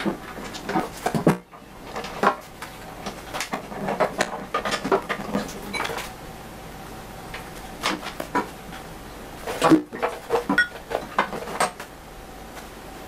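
Irregular clicks, knocks and clatter of tools and small hard parts being handled during hands-on assembly of luggage mounting hardware, with two brief dropouts where the sound cuts away.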